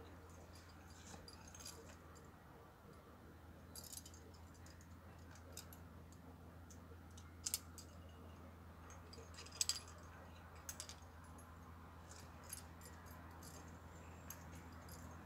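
Faint, scattered metallic clicks and clinks of climbing gear, with a few louder clinks in the middle, over a low steady hum.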